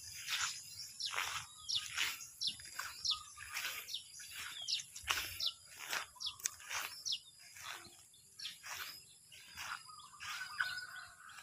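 Small birds chirping in short, quick calls, over the regular swish of footsteps through grass about every half second.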